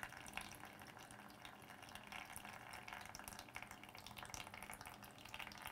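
Faint trickle of a thin stream of liquid running from the base of a 3D-printed Pythagorean cup into a plastic tub below. The cup has been filled past its line and is siphoning itself empty.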